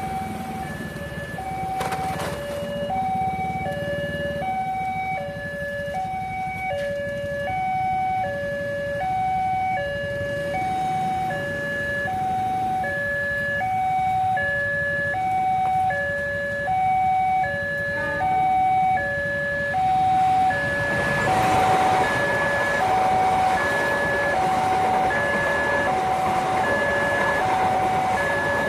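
Railway level crossing warning sounder ringing, an electronic two-tone alarm alternating high and low, each tone about once a second. About two-thirds of the way in, the loud rush of a passing passenger train rises under it: the Argo Lawu, hauled by a CC206 diesel-electric locomotive.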